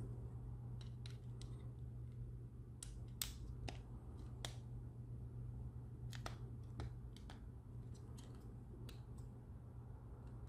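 Hard 3D-printed plastic parts of a crossbow pistol clicking and knocking together as they are handled and fitted into each other: about a dozen sharp, irregular clicks, over a steady low hum.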